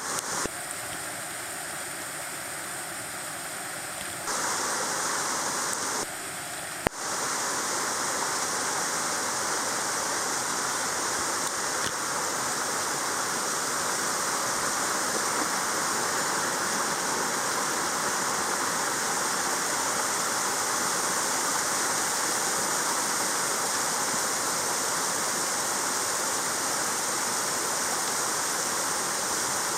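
Steady rush of a mountain stream and waterfall. It steps louder at edits about four seconds in and about seven seconds in, with a single sharp click at the second edit.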